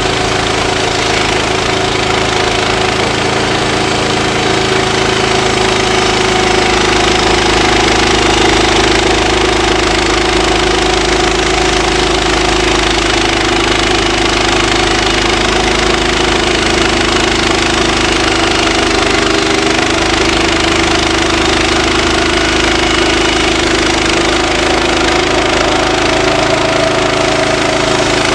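Woodland Mills HM126 portable bandsaw mill running steadily under load, its gas engine driving the band blade through a log as the head is pushed along the cut.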